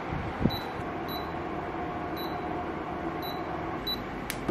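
Cleanforce air purifier's touch control panel beeping five times, short high beeps as its buttons are pressed, over the steady whir of its fan. A sharp click near the end.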